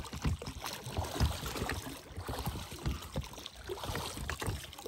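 Small boat being rowed: irregular water splashes and knocks of the oars against the boat.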